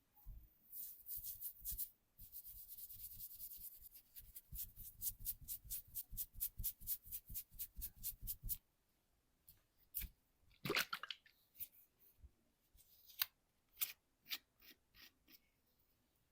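Hands rubbing and stroking over hair and skin in a head massage: scratchy strokes, then a quick steady rhythm of about five strokes a second for about four seconds, then scattered soft clicks and taps, with one louder snap about ten seconds in.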